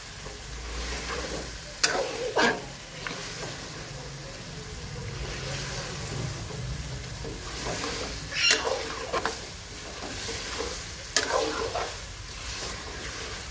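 Chicken pieces in a thick masala sizzling in a metal pot over a raised gas flame while being stirred with a steel spoon, which clacks and scrapes against the pot several times. This is the bhuna stage, frying the meat in the masala so the spices cook in.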